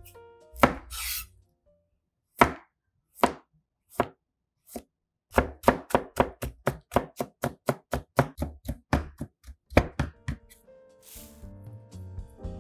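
Chef's knife julienning a carrot on a plastic cutting board: a few separate slices, then a quick, even run of chops at about four a second for around five seconds. Near the end comes a brief hiss of salt being sprinkled over the carrot strips.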